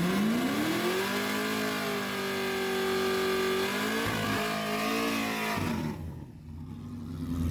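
A car engine accelerating hard, its pitch climbing and holding high. It drops at a gear change a little under four seconds in, then climbs again. About six seconds in it backs off to a quieter low rumble.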